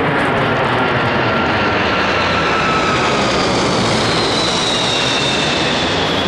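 An aircraft passing over: a loud, steady rushing noise with faint whining tones slowly falling in pitch.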